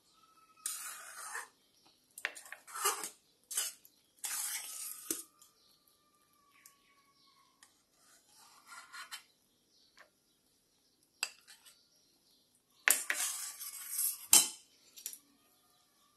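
Spatula scraping around a stainless steel pan of cooking strawberry jam, skimming off the foam and stirring. It comes in short strokes with pauses between them, with a few sharp knocks of the spatula. The longest and loudest scraping is about thirteen to fourteen seconds in.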